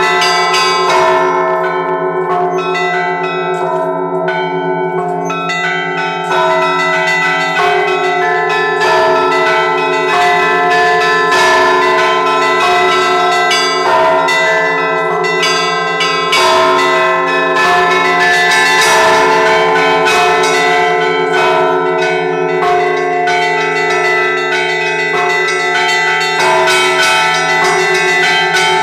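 Russian Orthodox church bells rung in a razgonny zvon, a fast festive peal: quick, overlapping strokes of the smaller bells over the steady ring of a larger bell. It is the ringing that marks the end of the Sunday service.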